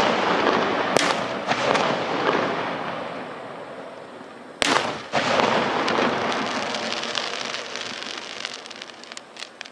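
Water-launched star mine fireworks bursting in a rapid barrage: sharp bangs about a second in and again near five seconds, each followed by a long wash of crackling that slowly fades, with a few last crackles near the end.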